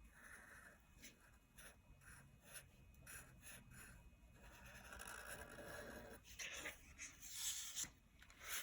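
Black permanent marker drawn across paper in short and longer strokes, faint, outlining a drawing.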